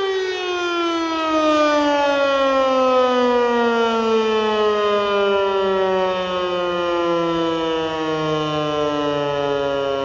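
Landert MSL-6 electric motor siren winding down at the end of its steady 'Entwarnung' all-clear tone. Its pitch slides smoothly and steadily downward as the rotor slows.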